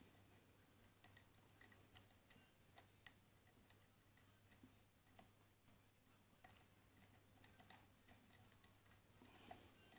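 Faint, irregular metallic clicks and ticks of a dimple pick working the pins of a Keso 2000 dimple lock, with a short denser scratchy cluster near the end, over a steady low hum.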